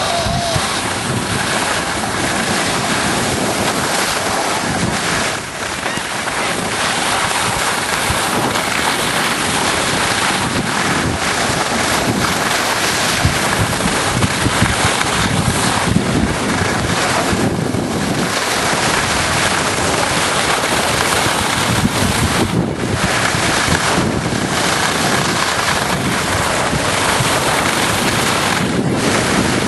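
Wind buffeting the camera's microphone: a steady, loud rush of noise with a few brief dips.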